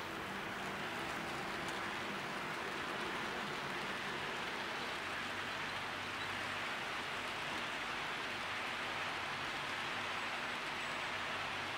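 HO-scale model freight train rolling past: a steady rushing noise of its metal wheels running on the rails as a line of covered hopper cars goes by.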